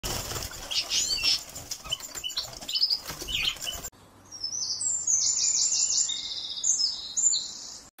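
European goldfinches fluttering and flapping against the bars of a wooden cage, with short high chirps. About four seconds in this cuts to a clean birdsong recording: high, rapidly repeated song notes.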